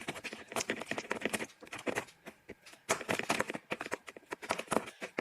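Slime mixture being stirred in a container as activator goes in, making a rapid, irregular run of clicks, taps and wet squishes: the glue is starting to clump.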